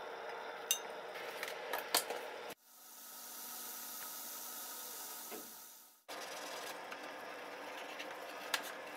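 A few sharp clicks of the wire and metal fishing spoon against a glass jar as the spoon is hung in the plating bath. Then a steady hiss fades in and out. Near the end, black nitrile-gloved fingers rub and scrub the spoon over a plastic tub, with one more click.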